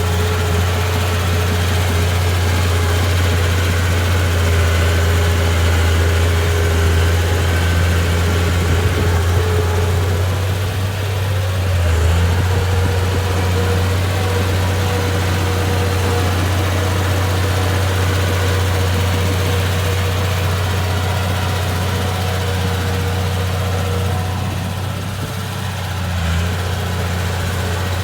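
Bulldozer's diesel engine running steadily with a deep hum and a fainter steady whine above it, dipping briefly twice.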